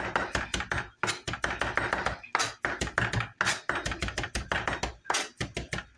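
Chef's knife chopping fresh parsley on a wooden cutting board: a fast run of blade knocks on the board, several a second, with a short break about a second in.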